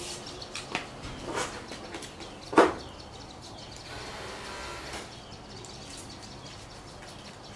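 Crisp green mango being cut with a knife and bitten: a few short, sharp crunches about a second apart, the third the loudest, then only faint background.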